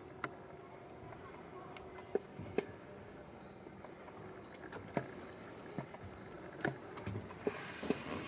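Steady high-pitched drone of tropical forest insects, with a short run of faint high chirps a few seconds in. Scattered sharp knocks sound over it, more of them near the end.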